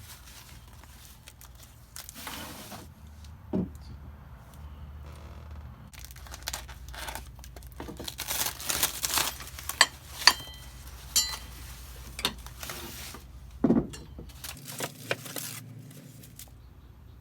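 Packing material crinkling and tearing while bogies for a live steam model coach are unboxed, with scattered sharp clicks and two dull knocks as the parts are handled.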